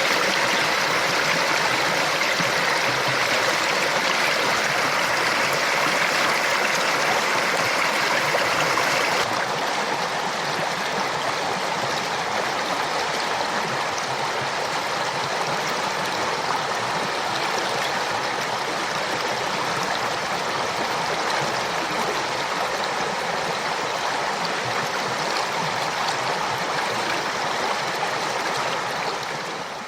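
Flooded creek, water rushing steadily. About nine seconds in, the sound drops a little and turns duller, and it fades out at the very end.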